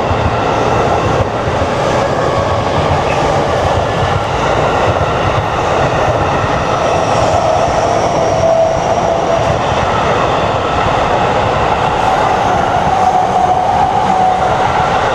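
Electric commuter train running past close by, a loud, steady rolling noise with a thin whine over it that shifts in pitch through the middle.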